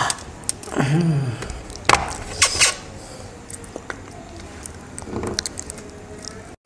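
A glass bowl of chocolate spread clinks sharply a few times on a stainless steel tray about two seconds in, after a short vocal sound. Then come softer wet lip and finger-licking sounds of eating.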